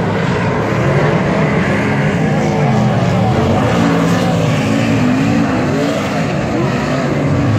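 Several Super Sedan speedway cars' V8 engines at racing speed, several engines overlapping. Their pitch rises and falls as they accelerate and lift off through the turns.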